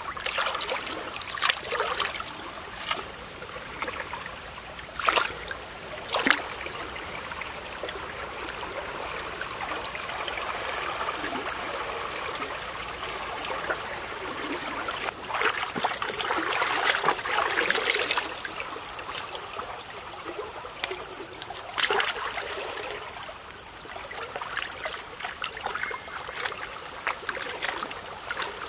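Hands splashing and sloshing water while washing a raw whole chicken in a shallow stream, over the steady run of the stream. Several sharp splashes are scattered through it, with a longer stretch of sloshing around the middle.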